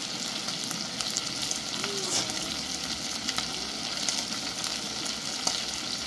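Onions and garlic frying in hot cooking oil: a steady sizzling hiss dotted with small crackles.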